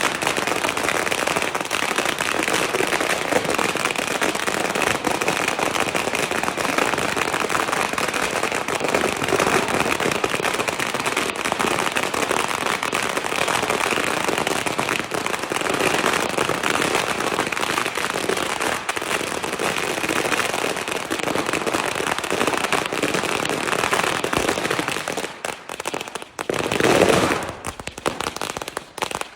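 A long string of firecrackers going off in a dense, continuous crackle, thinning out into separate pops near the end with one louder burst.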